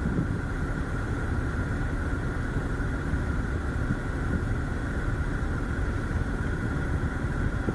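Steady low rumble of a car heard from inside the cabin, engine and road noise with no breaks.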